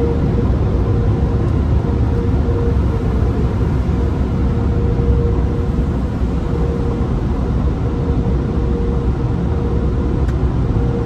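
Steady low rumble of a car heard from inside its cabin as it rolls slowly out of a car wash tunnel, with a faint hum that comes and goes.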